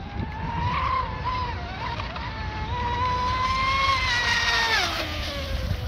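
Brushless electric RC speedboat (4074 2000kV outrunner motor on a 6S lipo) whining at speed. The pitch climbs a little and holds, then drops away about four and a half seconds in as the boat comes off the throttle into a turn.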